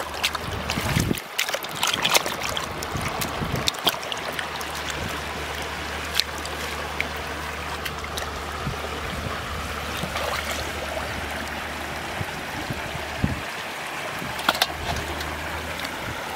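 Bare hands digging and scooping in wet mud, with irregular wet squelches and slaps, over a steady rush of shallow river water running nearby.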